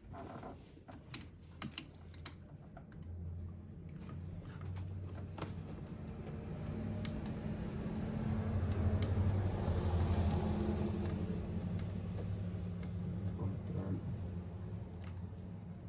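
Scattered small clicks and taps of parts and tools being handled, over a steady low hum that swells to its loudest about ten seconds in and then eases.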